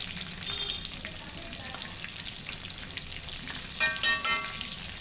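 Batter-coated green chillies (mirchi bajji) deep-frying in hot oil in a kadai: a steady crackling sizzle as a metal spoon turns them. About four seconds in, the spoon clinks twice against the pan with a short ring.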